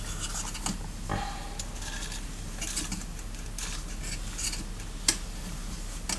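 Light clicks, taps and scrapes from handling a small glass terrarium with a paintbrush, with a sharper click about five seconds in and another near the end.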